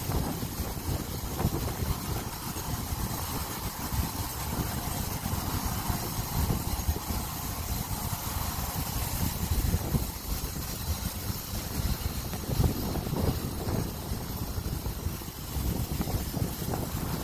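Gusty wind buffeting the microphone: an uneven low rumble that rises and falls, with a steady hiss above it.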